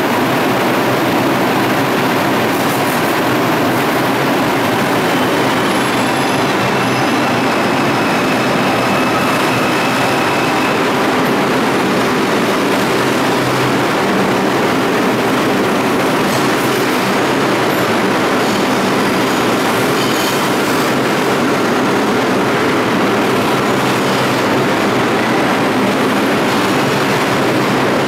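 An R142 subway train running out along the station platform: a steady, loud rumble of steel wheels on the rails, with faint thin whines and squeals coming and going in the first half.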